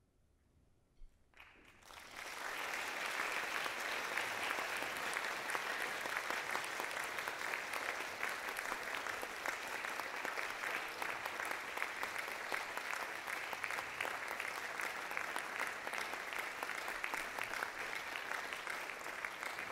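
About a second and a half of near silence after the band's last note, then an audience breaks into applause that goes on steadily.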